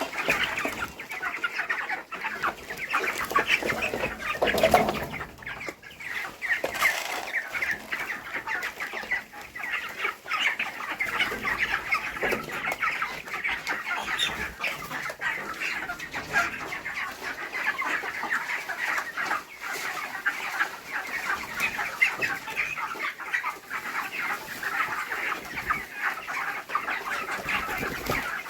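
Dense, continuous chatter of many broiler chickens in a poultry house, with a brief louder, lower sound about four to five seconds in.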